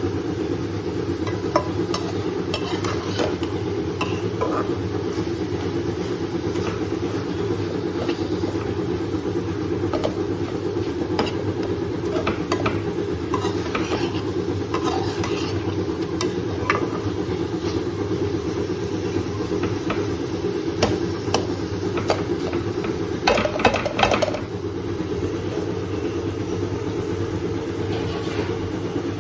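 A spoon stirring in a pan, with scattered metal clinks and a denser run of clinks near the end, over a steady low hum.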